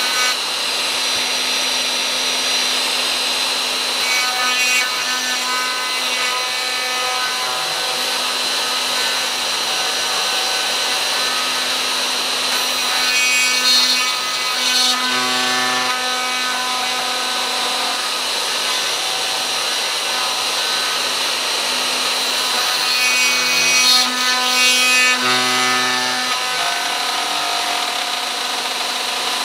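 Hitachi plunge router running at speed, its high-speed-steel wood router cutter milling a slot in a 5 mm aluminium strip. It is a steady high whine over a low hum, and the tone turns harsher and shifts in a few stretches as the metal is fed past the cutter.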